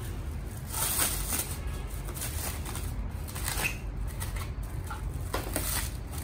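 Plastic wrap crinkling and styrofoam packing peanuts rustling as wrapped parts are lifted out of a cardboard box and handled, in irregular rustles that are loudest about a second in. A low steady hum sits underneath.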